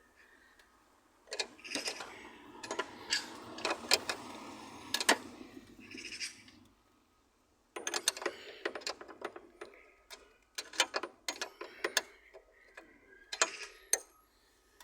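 Steel spanners clicking and clinking on tight nuts and bolts, an irregular run of metal-on-metal knocks with a short pause about halfway through.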